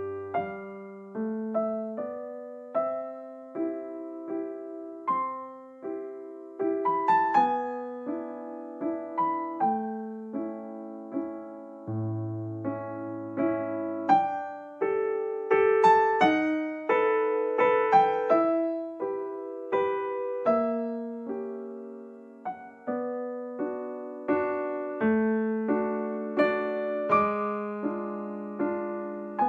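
Background piano music: a gentle melody of single struck notes over held bass notes, each note fading after it is struck.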